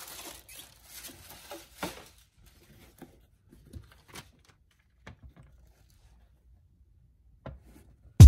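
Packing material in a cardboard shoebox rustling as it is handled, followed by a few faint clicks and soft taps over near-quiet, with one sharper tap near the end. Music with a drum beat cuts in at the very end.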